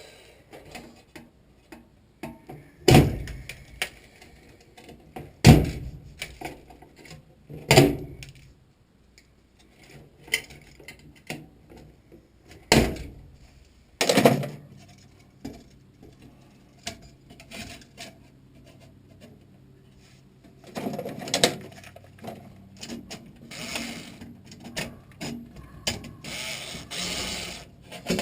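Hands working on a furnace control board's wiring, pulling off wire connectors: scattered small clicks with several sharp knocks spread through, and a denser stretch of clicking and rattling near the end.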